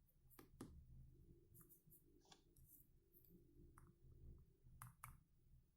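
Near silence with a scattering of faint, short clicks, from the phone being handled between ringtones.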